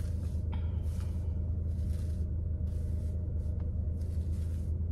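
Steady low rumble of a running vehicle, with a faint hiss that comes and goes.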